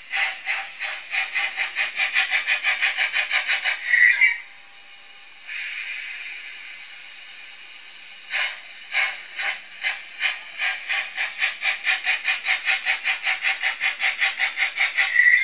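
Sound decoder of an older Märklin H0 class 86 steam locomotive model, playing rhythmic steam chuffing at about four beats a second. Each run of chuffs ends in a short brake squeal, about four seconds in and at the end, and a steady steam hiss comes between the two runs.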